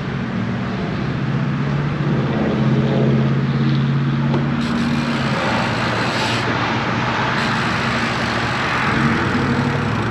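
Motor traffic on the road beside a bicycle: a vehicle engine's steady low hum over a continuous rush of tyre and road noise.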